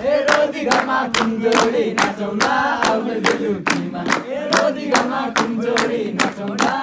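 Voices singing a Nepali dohori folk tune together, with steady hand clapping about three claps a second keeping the beat.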